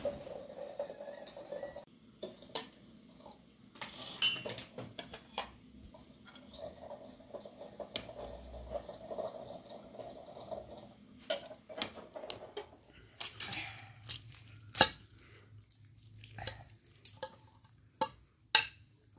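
A metal serving spoon scrapes and clinks against a metal pot and plates as rice is dished out. Near the end come a few sharp clinks of the spoon on a glass serving dish.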